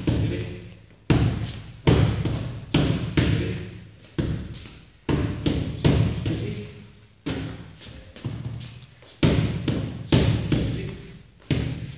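Boxing gloves smacking a coach's focus mitts, sharp punches coming in quick combinations of two or three, each with a short echo from a hard-walled gym hall.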